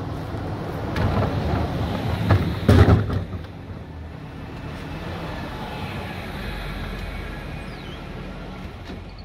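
Ford Ranger pickup's engine running as it reverses into a plastic wheeled garbage bin, with knocks about 1 to 3 seconds in, the loudest near three seconds as the bin is struck and tipped over. The engine then runs on more quietly.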